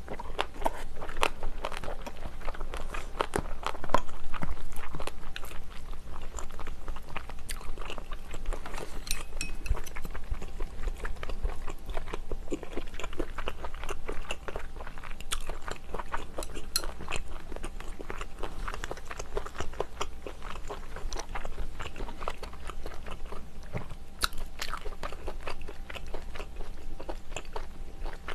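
A person chewing and eating spicy seafood and monkfish stew with rice and kimchi close to the microphone: a dense run of small wet mouth clicks, loudest about four seconds in.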